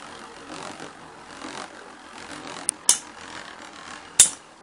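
Two Beyblade spinning tops whirring across a plastic stadium bowl, with sharp clacks as they strike each other: two close together a little under three seconds in and one more near the end.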